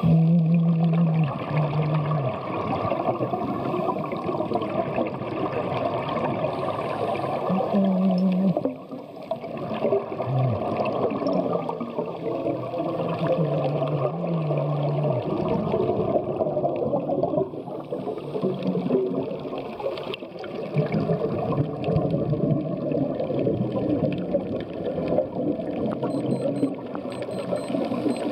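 Underwater sound picked up by a diving camera: continuous bubbling and gurgling from scuba divers' regulators as they breathe out, with a few short low hums now and then.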